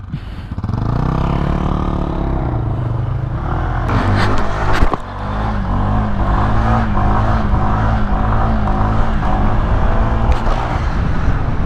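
Honda SH 125 scooter's single-cylinder engine pulling away, its pitch rising and falling in the first couple of seconds, then running at a steady cruising note under way. There is a sharp knock about five seconds in.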